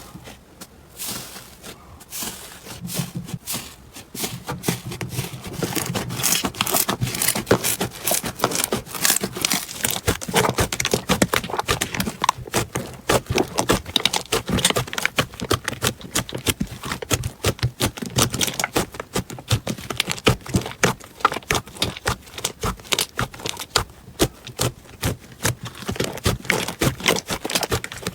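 Slime being squeezed and pressed, giving a dense run of small crackling and popping clicks. The clicks are sparse at first and thicken into a continuous crackle a few seconds in.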